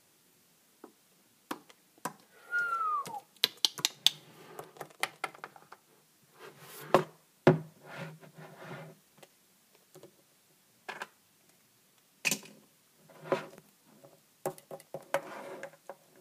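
Scattered clicks, taps and knocks of small plastic toy figurines being handled and set down on a hard shelf, with rustling between them. A short falling squeak-like tone comes about two and a half seconds in.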